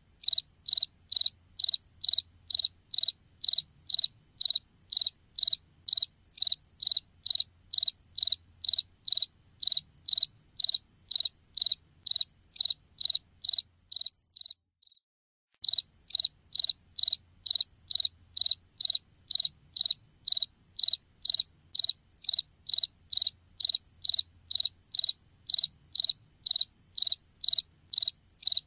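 A cricket chirping in a steady, even rhythm of about two high chirps a second, over a fainter continuous high trill. The chirping breaks off for about a second around the middle, then resumes at the same pace.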